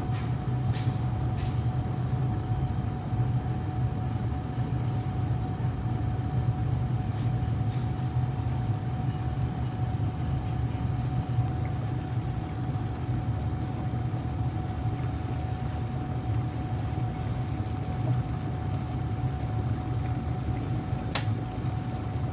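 Glass electric kettle with the water at a full boil: a steady low rumble with a faint steady tone above it. A single sharp click near the end is the kettle switching itself off at the boil.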